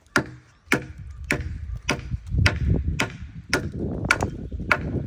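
A hewing tool's blade chopping into an elm log in a steady rhythm, about nine blows roughly every half second.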